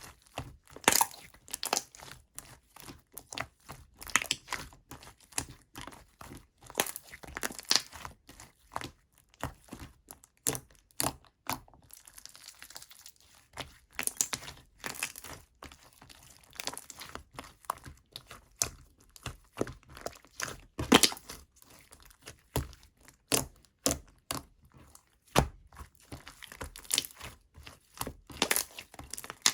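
Chewy clear slime being squished, pressed and stretched by hand, giving irregular sticky clicks, snaps and small air pops.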